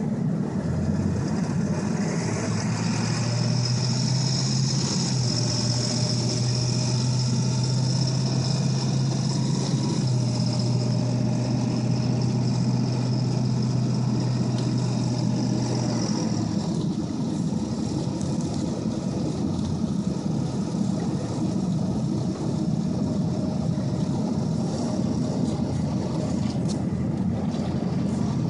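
2002 Ford F-250 pickup driving in four-wheel drive on a snow-covered road: steady engine and drivetrain hum, with a steady whine that stops about halfway through.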